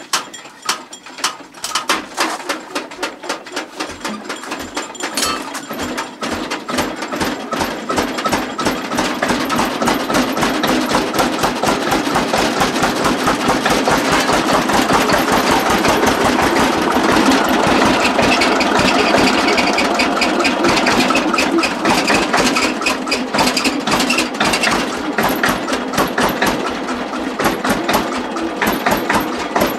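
Old tractor engine catching after being hand-cranked, firing in distinct, evenly spaced beats that quicken and grow louder over the first ten seconds or so, then settle into a steady idle.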